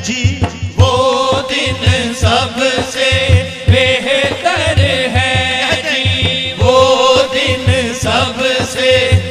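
Men singing an Urdu naat, a devotional song in praise of the Prophet, in long wavering melodic lines over a steady beat on a daf frame drum.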